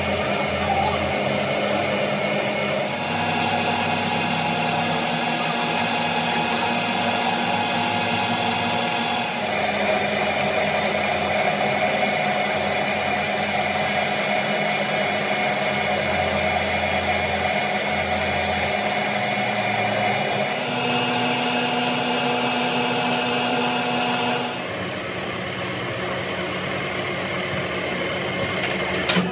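Workshop machinery running steadily, a motor hum with several steady tones. The sound changes abruptly a few times as one machine's running gives way to another's.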